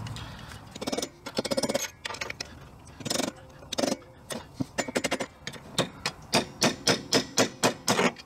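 Metal drum-brake hardware and hand tools clinking and clicking, with scattered clinks at first, then an even run of sharp clicks, about four or five a second, through the second half.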